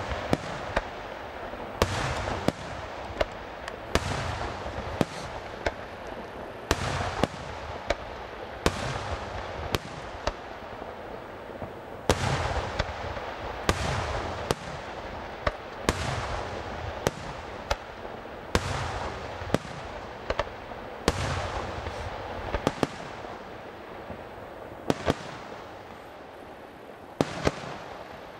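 Aerial firework shells bursting in a continuous sequence. Sharp bangs come about every second, each trailing off in a rolling echo.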